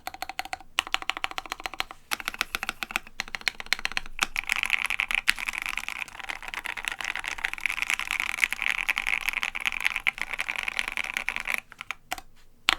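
Rapid typing on a Savage65 custom mechanical keyboard with lubed, filmed Gateron Ink Black linear switches and MT3 Godspeed keycaps. The keystrokes come so fast from about four seconds in that they run together, then stop shortly before the end.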